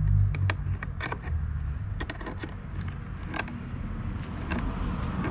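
Pliers working the crank bolt on a Pelican Hydryve II kayak pedal drive as it is tightened: irregular metal clicks and ticks, roughly one every half second to second, over a low rumble.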